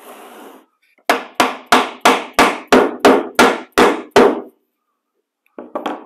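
A red mallet striking the plastic Ridgid HD1640 shop vac, about ten sharp taps at roughly three a second, driving a part into place during assembly.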